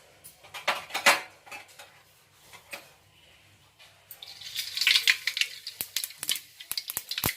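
A few metal clinks of a spoon against the pan, then from about four seconds in, mustard seeds crackling and popping fast in hot oil in a kadai: the seeds spluttering as the tempering starts.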